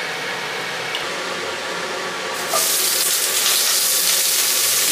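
Hot oil hissing in a preheated cast iron wok, then a louder, brighter sizzle that starts about two and a half seconds in as pieces of chicken thigh go into the oil to fry.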